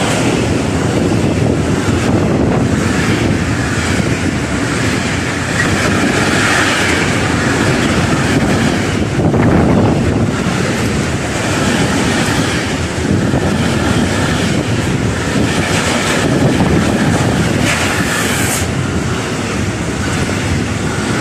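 Container freight train passing close by: the continuous noise of loaded container wagons running over the rails.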